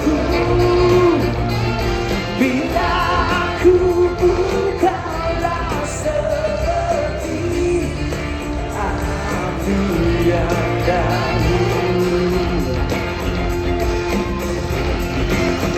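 Live pop band playing with a lead singer, a steady bass line under the sung melody.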